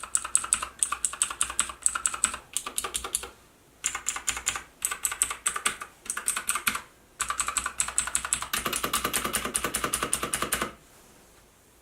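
ABKO K640 keyboard being typed on: quick runs of keystrokes in bursts with short pauses, ending in a fast unbroken run that stops near the end.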